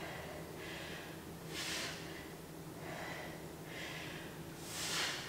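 A woman breathing hard from the effort of dumbbell snatches: a sharp, hissy exhalation about every three seconds, with softer breaths in between.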